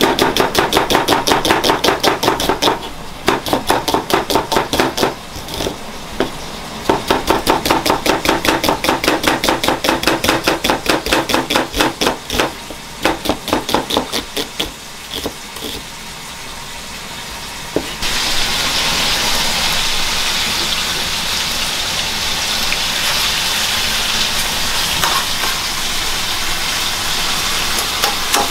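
Kitchen knife slicing an onion on a cutting board in quick, even strokes, in runs with short pauses, slowing near the middle. About 18 seconds in it changes to a steady sizzle of onion and diced bacon frying in oil in a pan.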